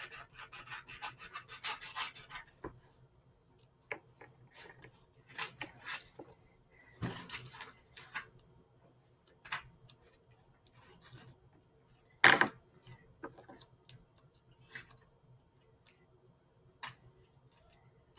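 White paper strips being creased and folded back and forth by hand: irregular rustling and crinkling with short crisp clicks, and one louder sharp tap about twelve seconds in.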